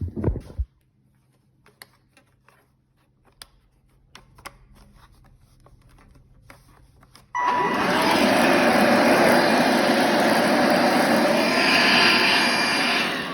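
Bosch cordless vacuum cleaner: a few handling knocks and clicks, then about seven seconds in the motor switches on abruptly and runs loud and steady. It switches off near the end, the motor spinning down, while being tested to show it works.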